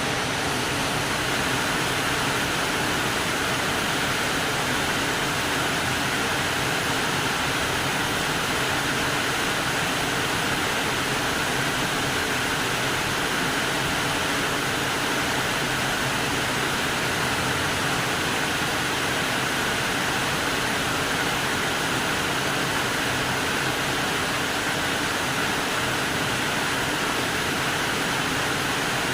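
Steady rain falling, an even hiss of noise.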